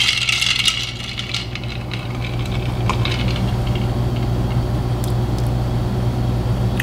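Ice cubes clinking and rattling in a glass as a cocktail is stirred, densest in the first second and then only a few scattered clinks, over a steady low hum.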